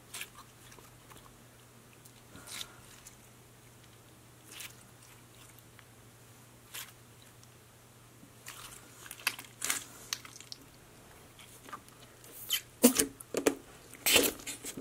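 Thick pink slime being squeezed and stretched by hand, making wet clicks and small crackling squelches. They are few and a couple of seconds apart at first, then come thicker and louder over the last few seconds.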